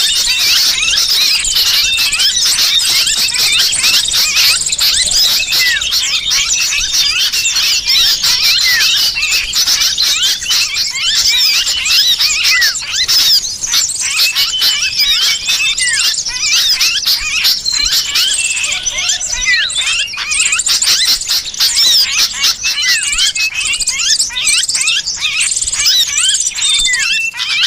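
Dense, unbroken chorus of small-bird chirps and shrill squeals: a bird-lure (pikat) call recording that mixes noisy sooty-headed bulbul calls with the distress cries of a pinned, trapped bird.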